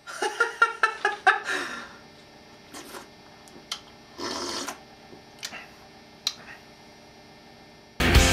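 A man's voice in quick pulsing bursts, then a short slurp as he drinks a soggy mush of bread and water from a glass, with a few small clicks in between. Loud punk rock music cuts in suddenly near the end.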